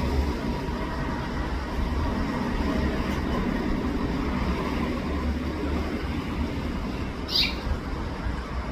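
Steady low background rumble with one short house finch chirp, sweeping down, about seven seconds in.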